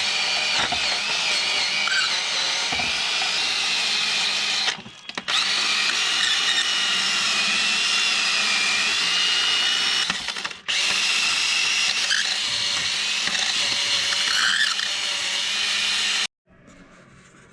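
Power tool spinning a wire wheel against metal, scrubbing old burnt exhaust-gasket residue off the cylinder head's exhaust flange. It runs with a high whine that wavers in pitch, pauses briefly twice, and stops shortly before the end.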